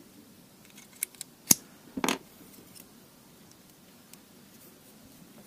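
Hard plastic clicking as a plastic mounting bracket is fitted onto a small Aquael FAN MICRO Plus internal aquarium filter: a few light clicks about a second in, one sharp click at about a second and a half, then a short scraping rattle.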